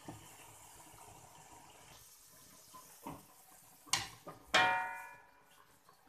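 Chopsticks stirring and lifting rice vermicelli in a pot of water, with faint splashing. About four seconds in there is a sharp tap, then a louder knock on the metal pot that rings for about a second.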